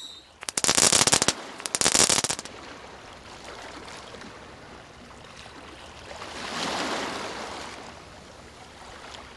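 Two short, loud bursts of crackling, firework-like noise in the first two seconds, then a steady wash of water lapping along a rocky shore that swells and fades once in the second half.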